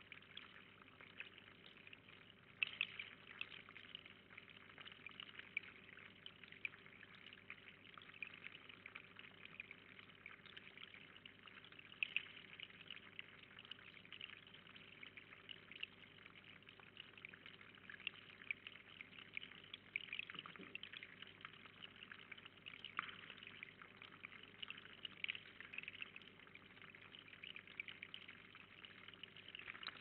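Faint, steady trickle of water with many small irregular drips at a small garden bird pond.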